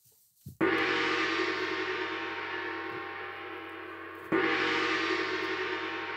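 A deep metallic ring struck twice, once about half a second in and again about four seconds in, each sounding many steady tones at once and fading slowly. It is set off by pulling a hanging bell-rope.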